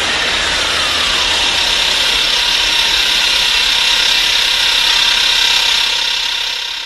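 Keizer Ghidorah monster sound effect: a loud, harsh, grating noise with falling pitch sweeps in its first second or so, then held steady and starting to fade out near the end.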